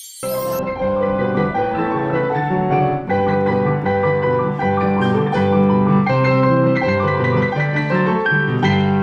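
Digital piano played as a four-hand duet: held low chords under a melody, starting abruptly just after the start.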